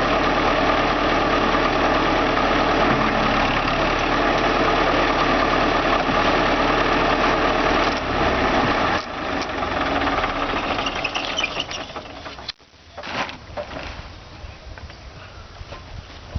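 Heavy diesel engine running steadily, then falling away about nine seconds in. Near the end it cuts out abruptly for a moment, and only quieter, scattered knocks follow.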